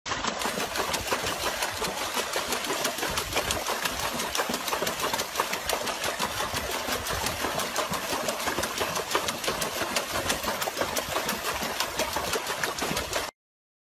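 Water splashing and churning without a break as a dog paddles hard in a plastic tub, a dense run of rapid splashes. It cuts off suddenly near the end.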